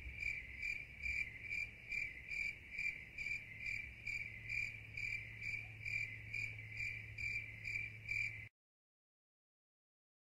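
Cricket chirping sound effect: an even, high chirp repeating about two and a half times a second, which cuts off suddenly near the end.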